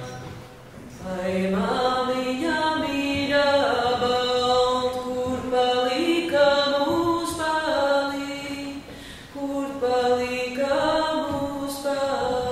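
Slow singing, long held notes that slide from one pitch to the next, with a short lull near the start and another about nine seconds in.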